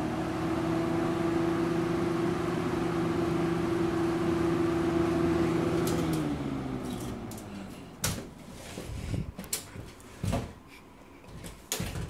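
1980s Lakewood P-223 box fan running on high: a steady motor hum with a strong tone and the rush of air, which fades and dips slightly in pitch about six seconds in. Several knocks and clicks follow in the last few seconds.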